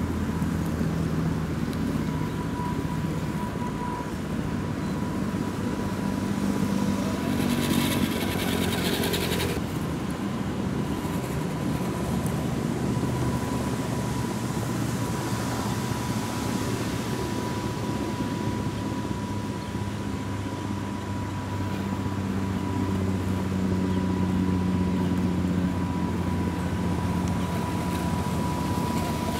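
The electric motor and gear drivetrain of an RC4WD Gelande 2 Defender 90 scale crawler whine as it crawls, with a steady high tone over a lower drive hum whose pitch shifts with the throttle. About eight seconds in comes a couple of seconds of gritty scraping.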